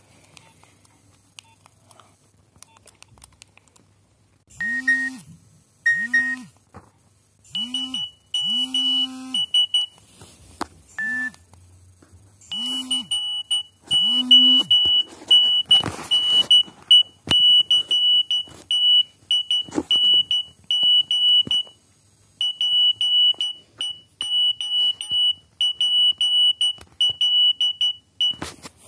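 Nokia 7210 mobile phone playing a beeping alert tone: short high beeps in quick pairs and groups. A low hum swells and fades under some of the first beeps.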